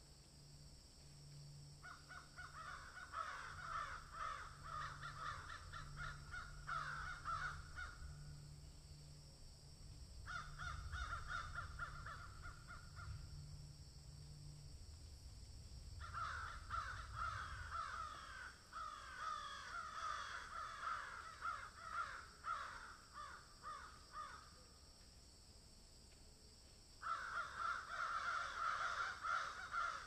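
Animal calls in four bouts of rapidly repeated notes, each lasting a few seconds with pauses between. A faint low hum stops about halfway through.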